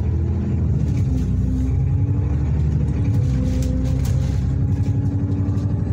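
Bus engine and drivetrain heard from inside the passenger saloon as the bus drives along, a steady low drone whose note steps up and down several times.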